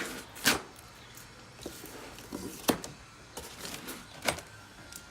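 A boxed toolbox being handled and opened: a few sharp knocks and scrapes, three of them loud.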